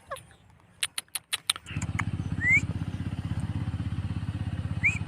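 Indian ringneck parakeet making a falling whistle and a quick run of sharp clicks, then two short rising whistles. From about a second and a half in, a steady low drone with fast, even pulsing, like a small engine running, is the loudest sound.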